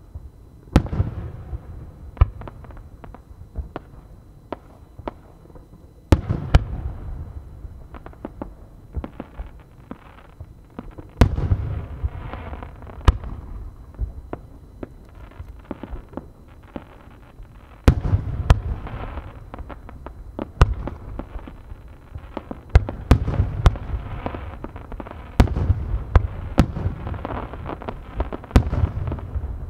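Aerial firework shells by Hosoya Enterprise bursting in several volleys: sharp bangs and deep booms in quick succession, with crackling between them, thickening into a dense barrage near the end.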